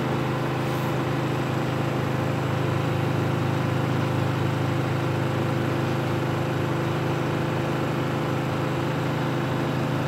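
Grundig front-loading washing machine running a spin-only cycle, its drum and motor giving a steady, unchanging hum.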